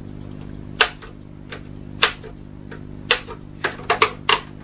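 Plastic retaining clips of an Xbox 360 case clicking free as they are pushed in with a thin blunt knife while the case halves are prised apart. Sharp clicks, a few spaced out at first, then several in quick succession near the end.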